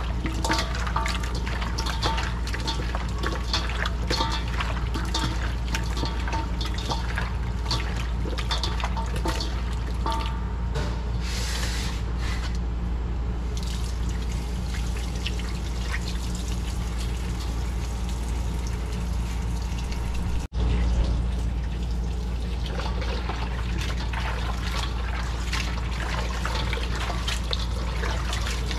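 Tap water running and splashing into a stainless-steel bowl while hands rub and squelch raw chicken pieces in it, with dense small splashes busiest in the first half. A steady low hum runs underneath.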